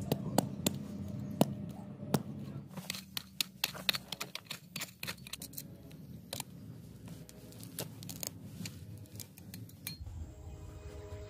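Irregular metal clicks, knocks and rattles of a steel folding shovel being handled, its hinged blade joint worked by hand; the clicks come thickest in the first few seconds and thin out later.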